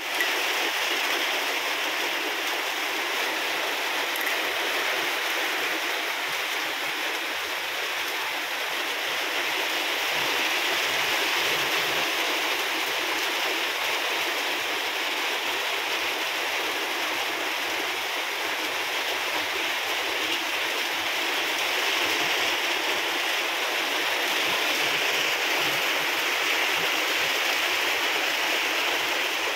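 Rain falling steadily on wet concrete and puddles: an even hiss that keeps up without a break.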